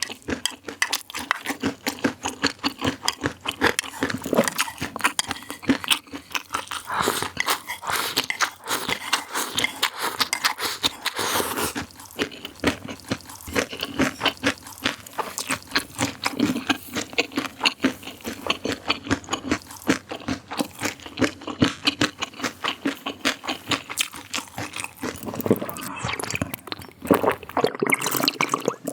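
Crunchy food being bitten and chewed close to the microphone, a dense run of crisp crunching clicks.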